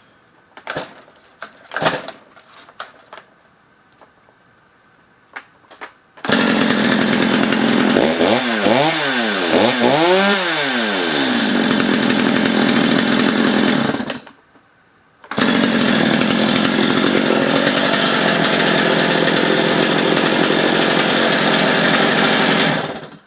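Stihl MS 250 two-stroke chainsaw starting about six seconds in, revved up and down three times, then cutting out suddenly. It starts again about a second later and runs steadily until it stops near the end, its low-speed screw turned up for a higher idle. Before the first start come a few knocks and clicks of handling.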